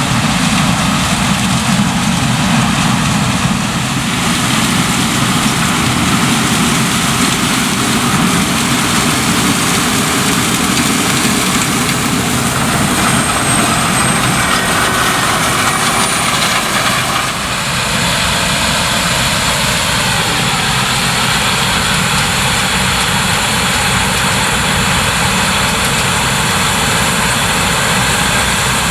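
Claas Lexion 770 TerraTrac combine harvester running steadily while harvesting corn: its Mercedes-Benz V8 diesel engine and threshing machinery under load. The sound dips briefly and shifts slightly in tone a little past halfway.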